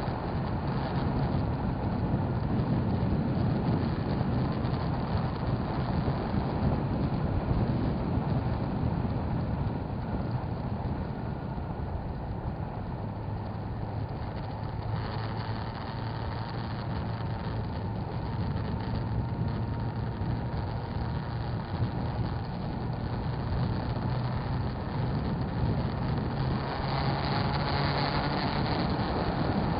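Motorcycle engine running while riding in traffic: a steady low engine hum under continuous rushing road noise, growing louder and brighter in the last few seconds.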